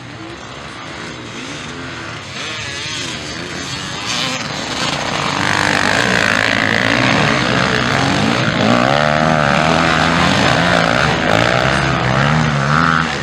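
Motocross motorcycle engines revving up and down with the throttle as the racers ride the track. The engine sound grows louder about five seconds in.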